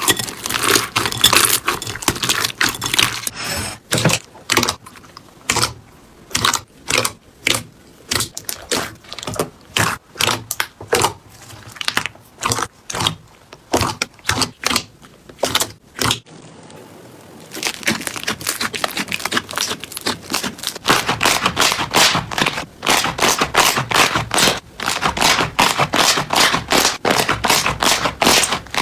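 Slime being pressed and squeezed by hand, giving crackly, clicking pops. It starts as dense crackling, turns to a run of separate presses about two a second, then after a short lull becomes dense continuous crackling again.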